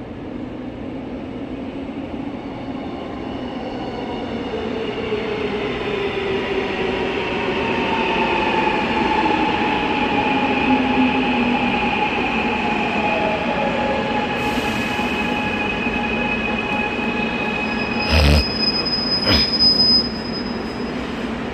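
Gwangju metro subway train running and slowing: its motor whine falls steadily in pitch over the rumble of the wheels. Near the end come two sharp knocks and a brief high-pitched squeal.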